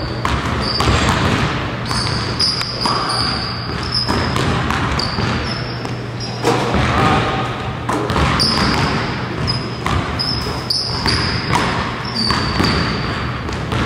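Basketballs bouncing on a hardwood gym floor, with many short, high sneaker squeaks and a steady low hum.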